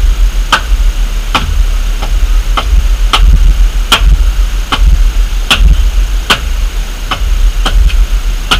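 A carpenter striking wood with a hand tool: sharp knocks about twice a second, some louder than others, over a steady low rumble.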